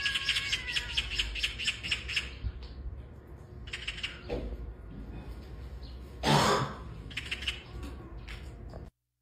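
Magpies giving rattling alarm chatter, the way they mob a predator such as a cat in their tree. It starts with about two seconds of fast rattles, then shorter rattles follow, with one louder, harsher squawk about six seconds in.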